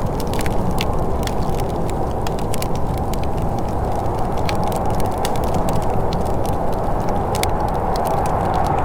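Wood fire crackling, with frequent small sharp pops and snaps at irregular intervals over a steady low rushing noise.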